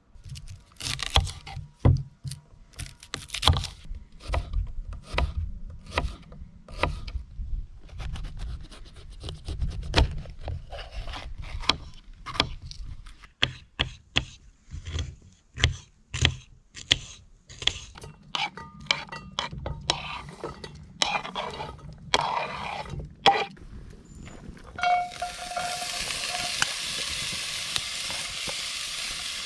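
Knife chopping onions and bell peppers, many irregular sharp cuts. About 25 seconds in, the vegetables go into the hot pot and start sizzling steadily.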